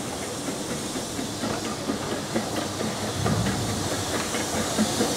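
Double Fairlie steam locomotive moving slowly on narrow-gauge track, hissing steam, with scattered clicks and knocks from the wheels and motion; it gets gradually louder as it draws near.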